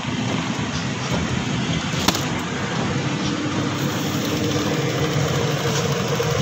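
A small engine running steadily at idle, with one sharp click about two seconds in.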